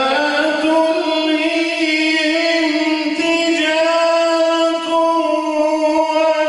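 A man's solo voice reciting the Quran in melodic, cantillated style, holding one long note at a nearly steady pitch with slight wavering.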